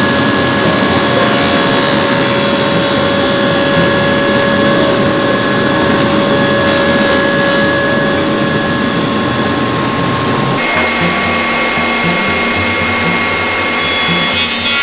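Table saw running with a dado blade stack spinning, a loud steady motor whine with several steady tones over dense noise, as the blade is raised up into the sacrificial wooden fence. About ten seconds in the sound shifts abruptly to a different steady pitch.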